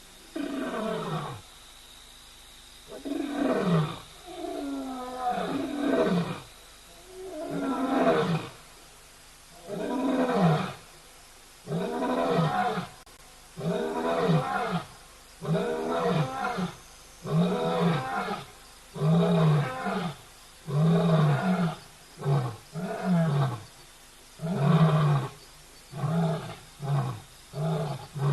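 African lion roaring: the bout opens with long, low moaning roars, then goes into a long run of shorter grunting roars that come shorter and quicker toward the end.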